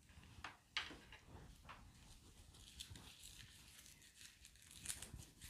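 Faint rustling and crinkling of plastic shrink wrap being cut and peeled off a stack of round cards, with scattered light ticks, a little louder near the end.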